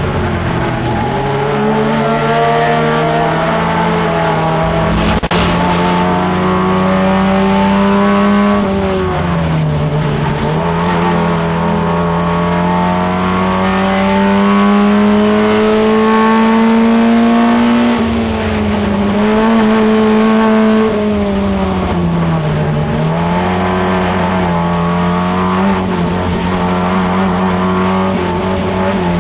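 In-car sound of a Holden Gemini race car's four-cylinder engine at racing speed, its pitch climbing in long pulls under acceleration and dropping sharply as it slows for corners, about a second, ten seconds and twenty-two seconds in. A brief knock sounds about five seconds in.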